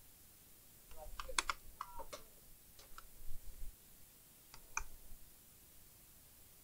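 Small scattered clicks and taps of a screwdriver working screws out of a laptop's plastic chassis, and of screws being handled and set down, coming in clusters with short pauses between.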